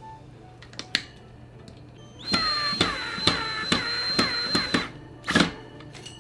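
Ryobi cordless drill running for about two and a half seconds, a steady high whine with a regular clicking about twice a second, then a short burst about a second later.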